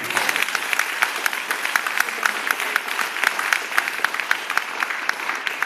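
Audience applauding: a dense, even patter of many hand claps that starts suddenly.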